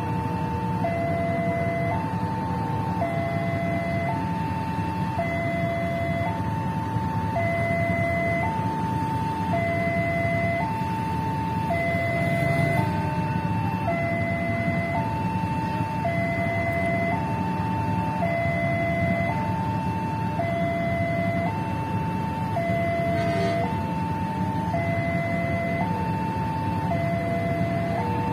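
Railway level-crossing warning alarm sounding a repeating two-tone electronic chime, alternating high and low at an even rhythm, over the steady rumble of a passenger train's coaches rolling past on the track.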